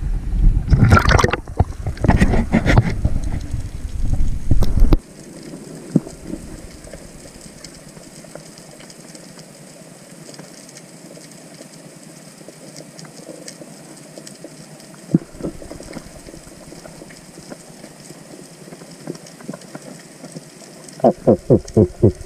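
Sea water splashing and sloshing around an action camera at the surface, cut off suddenly about five seconds in as it goes under on a spearfishing dive, leaving a quiet steady underwater hiss. Near the end comes a quick run of about seven evenly spaced pulses: the diver's fish call to draw fish in.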